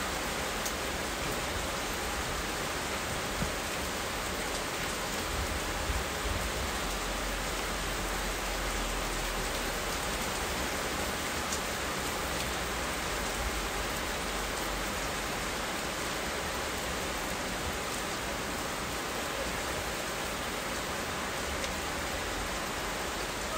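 Steady rain falling, an even hiss with a few faint ticks of single drops, and a low rumble in the first half.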